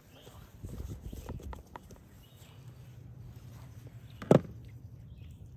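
Soft rustling of hands working a skinned chicken carcass on a table, then one sharp click from a pair of metal shears about four seconds in.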